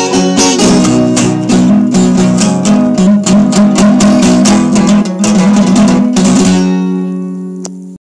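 Acoustic guitar strummed in a steady rhythm of chords, ending about six and a half seconds in on a final chord left ringing and fading away, with a small click just before the end.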